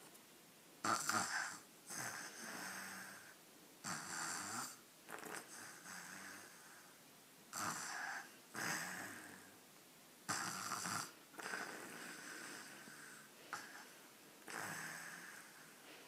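A sleeping toddler snoring through his open mouth in slow, regular breaths, about four in all, each a short, louder snore followed by a longer, softer one.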